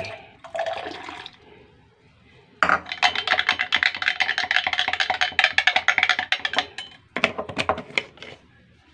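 Long plastic spoon stirring coffee in a glass mug, clicking rapidly against the glass for about four seconds, then a few more clicks before it stops.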